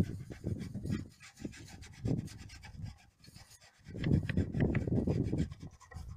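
A metal scraper blade scraping a wooden beehive bottom board with a mesh screen, cleaning off dead bees and debris. There are rasping strokes through the first second, a short one about two seconds in, and a longer run of strokes about four to five and a half seconds in.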